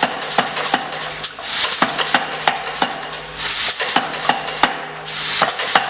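Pneumatic power hammer (air hammer) striking a hot nail blank in a steady run of blows, about three a second, over the steady hum of its motor, with a hiss of air near the end.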